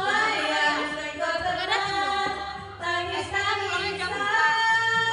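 A woman singing karaoke, her voice gliding up and down in pitch.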